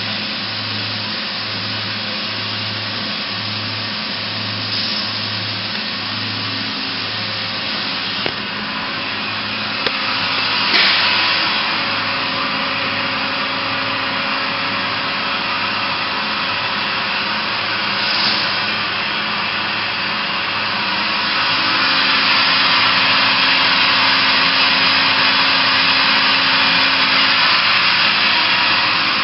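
Makino A81 horizontal machining center running under power: a steady rushing noise with a low hum pulsing about one and a half times a second. It grows louder and hissier about three quarters of the way through.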